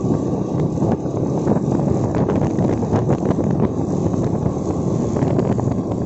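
Steady wind buffeting the microphone of a moving motorcycle, with the bike's engine and road noise underneath.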